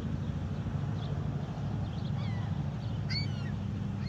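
Gulls calling: a few short cries that fall in pitch, the loudest about three seconds in, over a steady low rumble.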